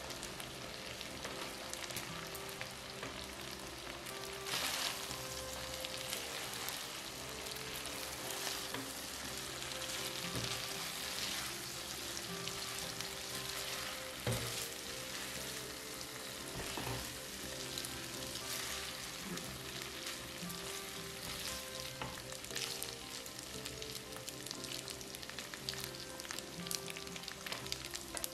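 Spaghetti and shrimp sizzling in butter-garlic sauce in a hot nonstick frying pan while tongs toss them together, with a few sharp clicks of the tongs against the pan.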